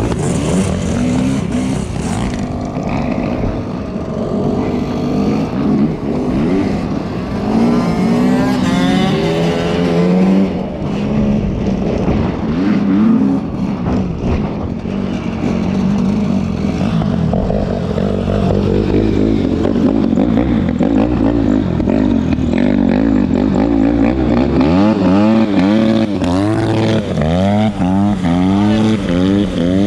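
Enduro dirt-bike engines being ridden hard, revving up and falling back again and again as the riders shift and work the throttle. There is a quick run of rising revs near the end.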